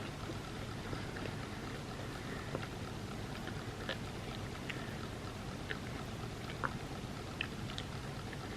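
Close-miked eating of a soft chocolate trifle: wet mouth sounds with scattered small clicks, over a steady background hiss.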